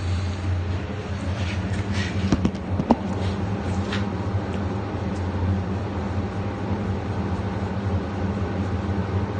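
Steady low mechanical hum, with a handful of sharp knocks and clicks about two to four seconds in.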